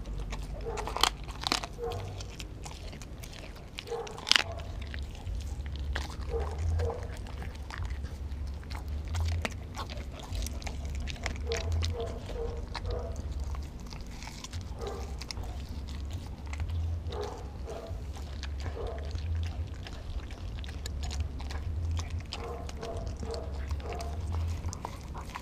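A pit bull–German shepherd mix dog chewing raw meat on the bone close up: wet biting and chewing with sharp crunches, the loudest few in the first five seconds. A steady low hum runs underneath.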